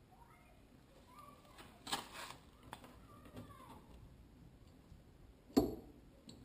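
Handling of a welding cable with a copper lug being set into a heavy-gauge crimper: a brief scraping rustle about two seconds in, then one sharp knock about five and a half seconds in.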